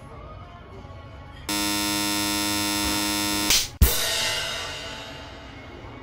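A loud buzzer sound effect blares steadily for about two seconds, starting about a second and a half in, cut off by a sharp crash whose ringing tail fades over about a second. Faint background music runs underneath.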